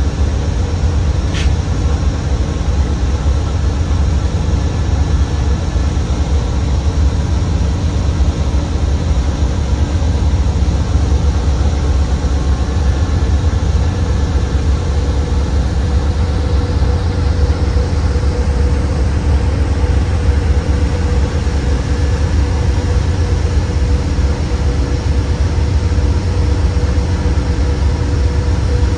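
Amtrak GE P42DC diesel locomotives idling: a steady low engine rumble with a faint steady whine above it.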